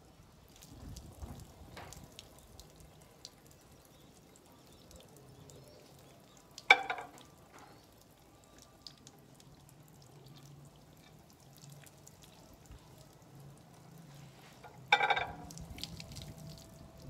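Soft drink being poured from a plastic bottle into a glass cup, with faint fizzing and dripping. Two sharp knocks on the glass tabletop, about a third of the way in and near the end, are the loudest sounds.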